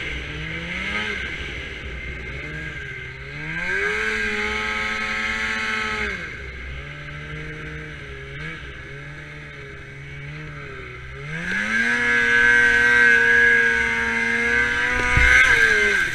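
Polaris IQ 600 snowmobile's two-stroke twin engine through an aftermarket MBRP exhaust, revving up under throttle while riding. The revs climb and hold high twice, briefly at first and then longer and louder near the end, dropping back between.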